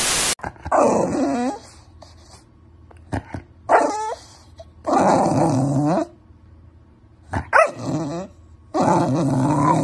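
A brief burst of static hiss, then a pit bull-type dog giving a series of about five drawn-out grumbling, growly whines, each bending up and down in pitch, a second or two apart.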